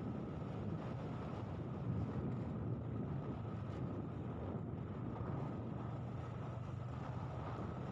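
Steady low rumble of a moving vehicle's engine and road noise, with wind buffeting the microphone.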